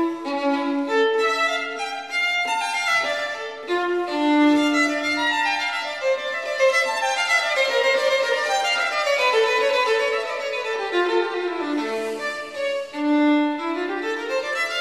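Background music: a solo violin playing a flowing melody in quick runs of notes.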